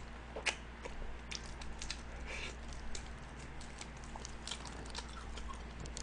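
Close-up chewing of honey-glazed fried chicken: irregular small crunches and wet clicks of the mouth, with no words.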